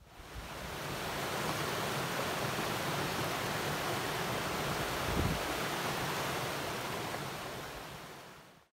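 Brook water running over rocks, a steady rush that fades in at the start and fades out near the end.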